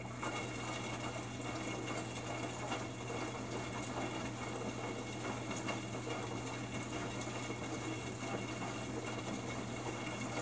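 Samsung WF45N5300AW front-load washer tumbling its drum, with water sloshing and splashing inside during a wash cycle, over a steady low hum.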